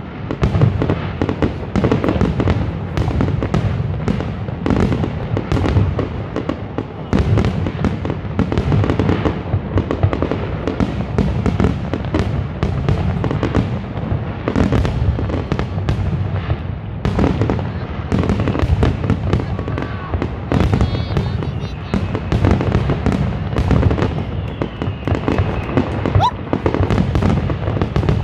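Aerial fireworks finale: a dense, continuous barrage of shell bursts, several booms and cracks a second with no pauses.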